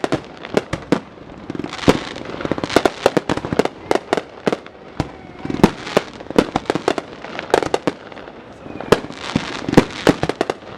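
Fireworks going off: a rapid, irregular string of sharp bangs and pops with crackling in between.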